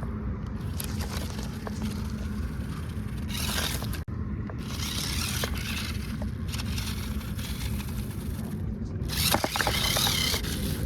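RC car's wheels churning and scraping through mud and rough ground in several bursts of a second or two, over a steady low rumble.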